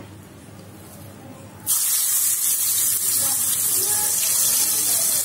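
Chopped onion dropped into hot oil in a frying pan, sizzling loudly: the sizzle starts suddenly about one and a half seconds in and then holds steady.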